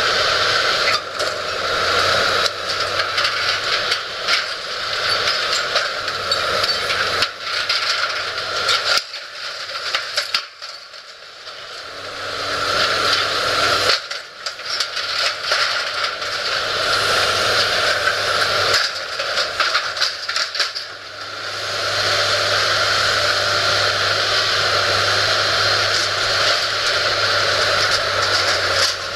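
Demolition excavator running under load, its engine and hydraulics working steadily while its grapple tears at a steel-framed building, with crunching and scraping of metal and debris. The sound drops back twice, about nine and about twenty seconds in.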